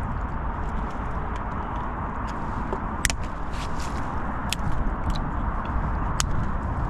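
Wind rumbling on the microphone outdoors, with a handful of light, sharp clicks in the second half.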